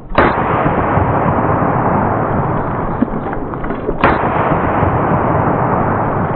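Two rifle shots from an AR-15 firing .223 at hard drives, about four seconds apart, each followed by a long echo.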